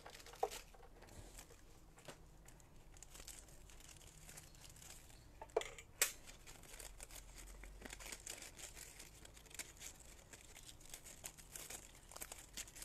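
Faint crinkling and rustling of a sheet of vellum being handled after die cutting, with two light clicks near the middle.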